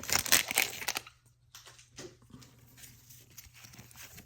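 Foil booster-pack wrapper crinkling and tearing open, loud for about the first second, then faint rustling of the wrapper and cards.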